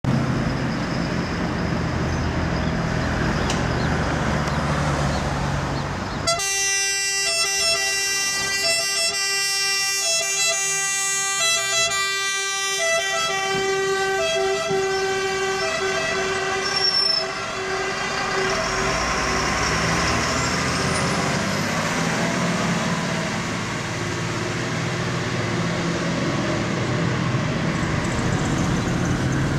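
Fire trucks' diesel engines running, then a fire engine's alternating-tone siren cuts in sharply about six seconds in. The siren sounds for about ten seconds and fades away, leaving the engine and road noise of the departing trucks.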